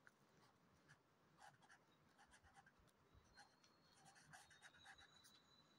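Faint scratching of a felt-tip pen writing on paper, in many short strokes as the letters are formed.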